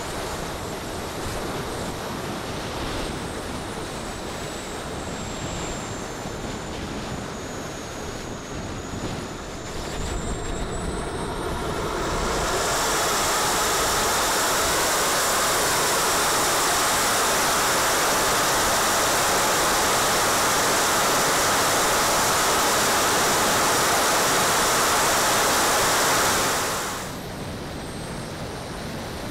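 Four Jets Munt 160 model gas turbines heard close up on the airframe: a high turbine whistle glides down and then rises. About twelve seconds in they open up into a loud, steady full-power roar that cuts off abruptly near the end.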